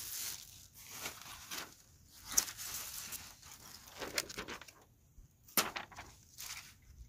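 Plastic wrapping crinkling and rustling as it is pulled off a disposable charcoal grill, then its aluminium foil tray and wire grate being handled. The sound comes in irregular rustles with two sharp clicks.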